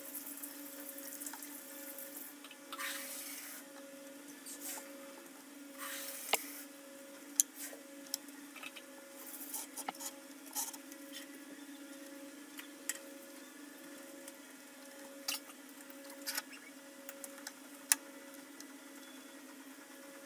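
PVC pipe rollers and their wire axles being handled and set across the rim of a plastic bucket: scattered sharp clicks and short rustles of pipe and wire knocking and rubbing on plastic, a few clicks standing out. Under them a steady low hum and a faint tone pulsing about once a second.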